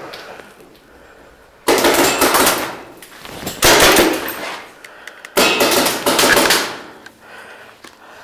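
Paintball markers firing in three rapid bursts of shots, each about a second long.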